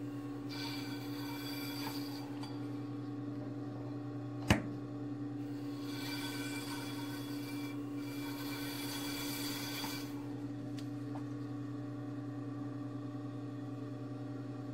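Leather edge-skiving machine running with a steady hum. Twice, for about two and then about four seconds, a hiss comes over it as the blade shaves down the edge of a leather piece being fed through, with one sharp click between the two passes.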